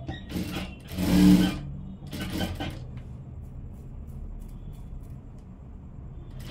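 Jack industrial sewing machine stitching in three short bursts, the loudest about a second in, followed by a low steady hum.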